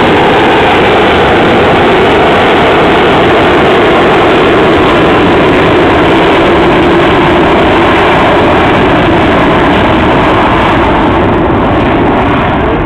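Harrier jump jet's Pegasus turbofan at high power, a loud steady jet roar as the aircraft accelerates away, its hiss thinning and the level easing slightly near the end as it recedes.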